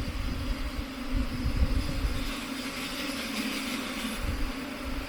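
Honeybees buzzing in a steady drone, a mass of bees stirred up while being moved into a hive, with low rumbling on the microphone.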